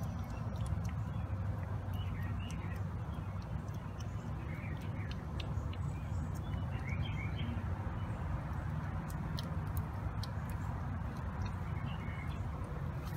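Cat and kittens eating from food bowls: small scattered clicks and crunches over a steady low background hum, with faint bird chirps now and then.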